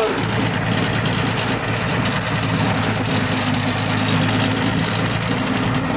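Vehicle engine running steadily while driving in fourth gear, a constant low hum under a broad hiss.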